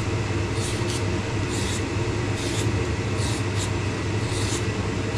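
Vegetables being peeled by hand: short scraping strokes, about six of them, one every second or less, over a steady low hum.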